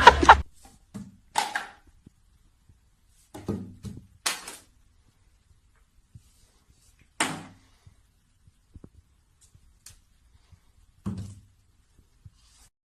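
Several separate short thumps and knocks, about six in all, spaced a few seconds apart, with near silence between them.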